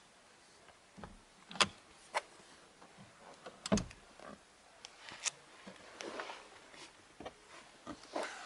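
Car seat being handled: scattered clicks and knocks, the loudest a dull thump a little before the middle, with some rustling of the seat upholstery.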